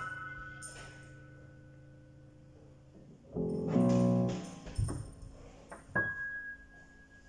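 Piano notes struck sparsely and left to ring. A brief loud cluster of notes comes about three and a half seconds in and stops abruptly, and a single high note struck about six seconds in rings on. A couple of soft knocks come in between.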